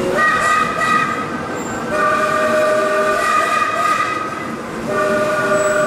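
Steam locomotive's whistle sounding three blasts as a chord of several notes: a short one, a long one of about two seconds, then another short one near the end. The rumble of the moving train runs underneath.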